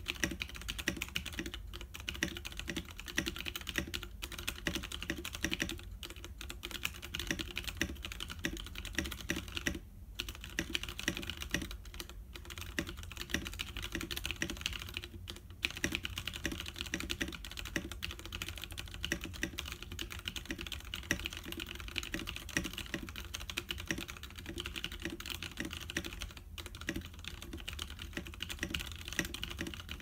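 Continuous fast typing on a KTEC Daisy 40% mechanical keyboard with stock, unlubed Kailh Pro Purple tactile switches, EnjoyPBT keycaps and an Acclive top-mount case with a 3 mm acrylic bottom: a dense run of key clicks broken by a few short pauses.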